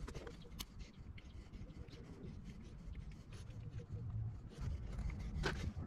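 Faint handling noise of hands and a small hand tool working at a wiring harness, cutting into a wire's insulation: a few light clicks, the sharpest about half a second in and near the end, over a low rumble.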